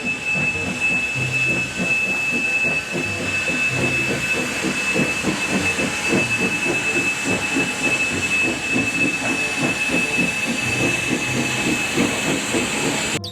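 A train running: a rhythmic clatter of wheels over the rails with a hiss, under one steady high tone.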